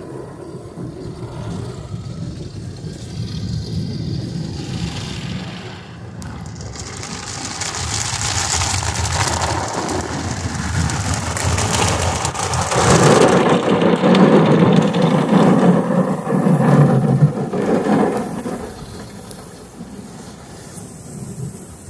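Automatic tunnel car wash heard from inside the car: water spraying onto the windshield and cloth wash strips sweeping over the body. It is a steady, rushing sound that builds, is loudest past the middle, and eases near the end.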